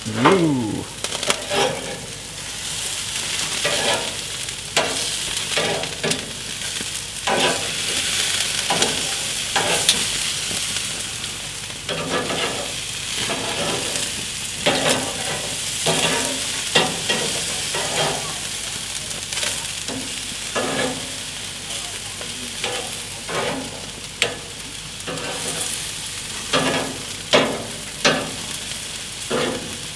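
Meat sizzling on a hot gas grill's grate with a steady hiss. Steel tongs clink and tap against the grate at irregular intervals, about once a second, as the pieces are turned.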